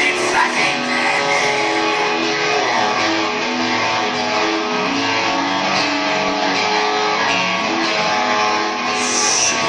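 Live noise-rock band playing: electric guitar and bass guitar holding a steady run of notes, changing a few times a second, at a constant loud level.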